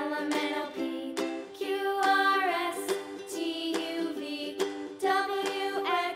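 Cheerful background music made of plucked, ukulele-like notes carrying a melody.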